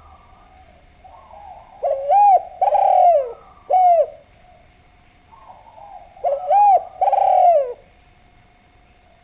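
Spotted dove (Javan derkuku) cooing: two loud phrases of several rounded coos, the first about two seconds in and the second about six seconds in, with softer low coos between them.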